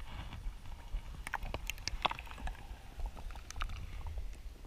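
Water sloshing and splashing as a hand and camera dip into shallow pond water to release a fish, with a cluster of small clicks and knocks between about one and two seconds in and a few more later over a low rumble.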